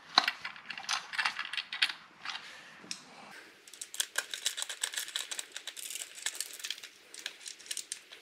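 Handling sounds from a Husqvarna 701's hard plastic airbox as the heat sensor is fitted into its pre-drilled holes: scattered clicks and knocks at first, then from about three seconds in a dense run of small rapid clicks and scrapes.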